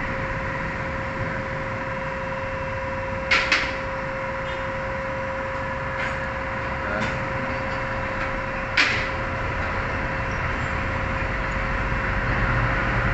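Light metallic clicks of a wire pad-retaining spring clip and pins being fitted by hand on a Mitsubishi Montero Sport's rear brake caliper: a quick double click about three seconds in, fainter ticks around six and seven seconds, and a sharper click near nine seconds, over a steady hum.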